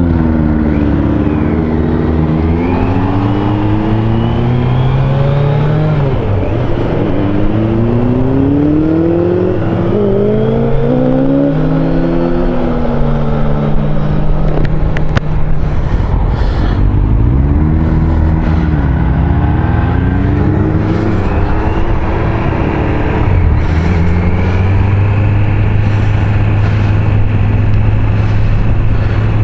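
Motorcycle engine heard from the rider's seat, accelerating away through the gears, its pitch climbing and dropping back at each shift in the first half. It eases off and picks up again about two-thirds of the way in, then settles to a steady cruise, with wind rushing over the microphone.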